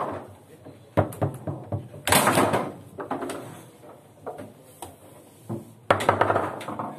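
Table football in play: sharp clacks of the ball being struck by the plastic figures and of the rods banging. There is one hit about a second in, a louder flurry of hits around two seconds in and another near the end.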